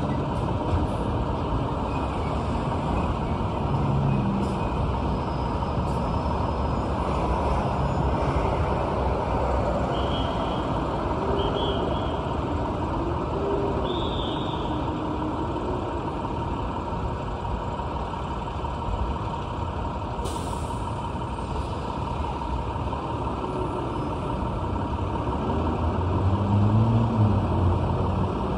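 City street traffic: a steady hum of passing cars and trucks, with a few short high squeals, a brief hiss about twenty seconds in, and a truck's engine drone growing louder near the end.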